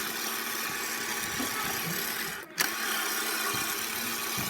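Small electric motor of a toy ATM bank whirring as it draws a banknote in through its note slot; it stops for a moment about halfway through, then runs again.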